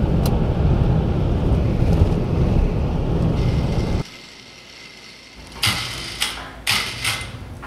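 Heavy low rumble of wind and road noise from a truck driving a dirt road, which cuts off suddenly about four seconds in. A quieter stretch follows with a handful of sharp clatters near the end, around a hoisted carcass being handled.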